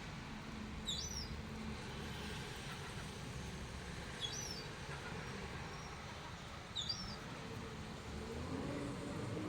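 A bird giving short, high chirps, one about every three seconds, over a steady low rumble.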